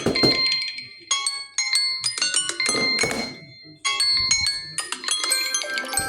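Android smartphone alarm tone: a bright electronic melody of short chiming, bell-like notes that breaks off briefly about a second in and again just before four seconds in, then starts over. A short muffled thump sounds at the start and about three seconds in.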